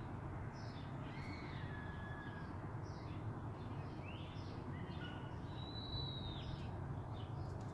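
Birds calling: scattered short chirps and a few longer clear whistles, one about a second in and a longer one near six seconds, over a faint steady low hum of background noise.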